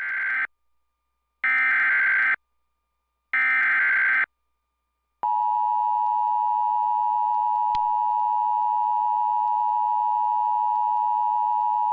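Emergency Alert System header and attention tones from a TFT EAS 911, marking the start of a new alert. First come three short bursts of SAME digital header data, each about a second long with about a second between them. Then, from about five seconds in, the steady EAS two-tone attention signal runs on.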